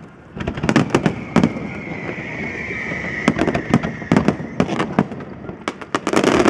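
Aerial fireworks display: a rapid, irregular run of sharp bangs and crackling bursts from many shells, after a brief lull at the start and thickening into a denser barrage near the end.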